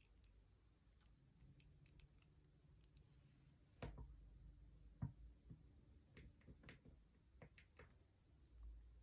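Faint clicks and light knocks of small laser-cut plywood kit pieces being handled and pressed together by hand, with two slightly louder knocks near the middle.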